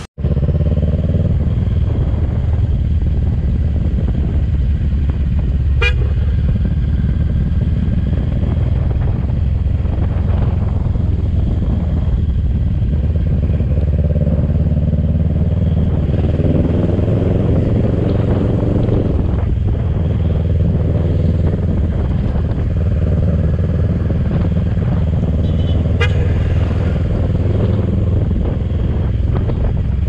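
Motorcycle engine running under way, with steady wind and road noise. The engine note climbs as it speeds up about halfway through. A horn gives a short toot twice.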